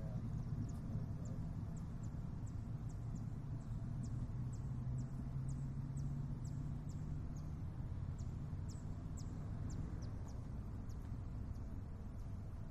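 Outdoor ambience: a steady low rumble with a small bird's quick, high, falling chirps repeating two to three times a second.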